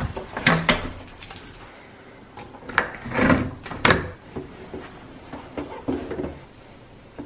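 Small hard objects being handled: a series of separate clinks and knocks, the loudest cluster about three to four seconds in.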